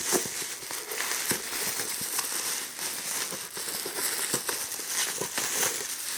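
Packaging being handled and opened by hand: irregular rustling and crinkling with many small crackles and clicks.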